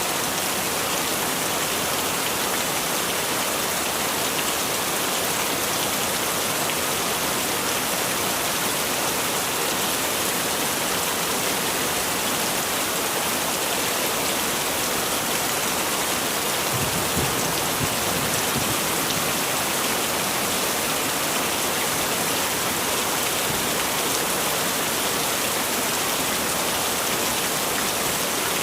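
Heavy rain falling steadily, an even hiss of drops with no let-up, with a brief low rumble about two-thirds of the way through.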